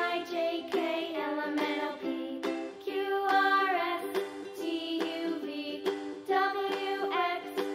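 Children's background music: a sung melody over a plucked, bright accompaniment.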